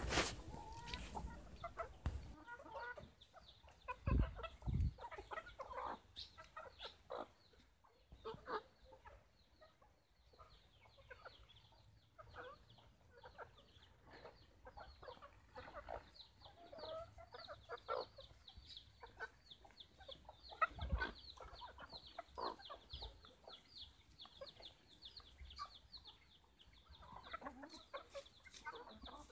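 A flock of chickens clucking softly and calling in short, scattered notes while they peck at food. A few low bumps come about four seconds in and again past the middle.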